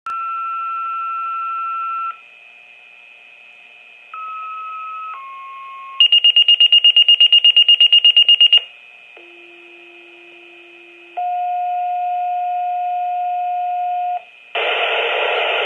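Fire department two-tone paging tones received on a Motorola pager: a run of steady tones held one to three seconds each at different pitches, then a fast high beeping alert about six seconds in as the pager trips. After it, a second tone pair, a low tone then a higher one, and a burst of radio static near the end.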